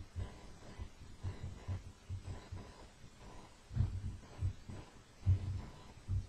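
Irregular dull low thumps of hands knocking against a desk while rolling a stainless steel mesh wick between the fingers, about two or three a second, with two louder knocks nearly four seconds in and again about a second and a half later.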